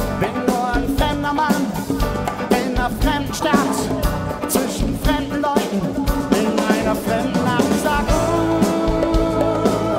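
Live rock band playing, with a drum kit beating regularly under bass and a wavering lead melody.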